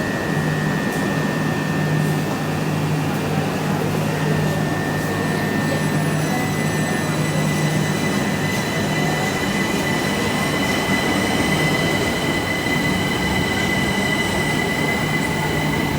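Train running, with a steady rumble, a low hum and a high thin whine that steps up slightly in pitch a few seconds in.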